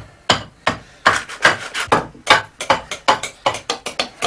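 Hand tool working an ash hurley blank: a quick, irregular run of short scraping strokes on the wood, about four or five a second.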